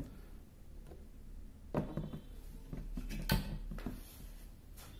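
A few light knocks and clinks as a glass wine bottle and a small shot glass are handled and set down on a table. The clearest knock comes about three seconds in.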